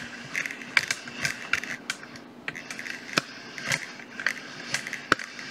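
Handling noise from a camera mount being raised and adjusted: a string of irregular clicks and knocks, about a dozen in all.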